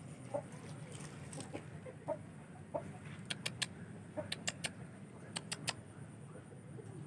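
Chickens clucking faintly in the background, short scattered clucks, with several quick sharp clicks in twos and threes in the middle of the stretch.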